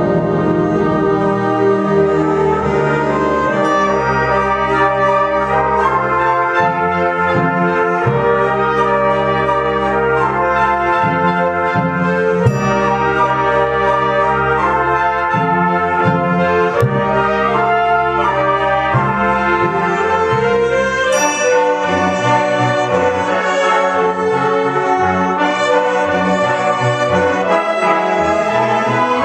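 Concert wind band playing live, with woodwinds and brass sounding full, sustained chords that change every second or two. The low register thins out about two-thirds of the way through, leaving the higher parts.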